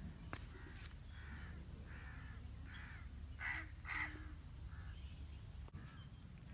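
Crow cawing repeatedly, a string of short harsh calls about two a second, the two loudest just past the middle.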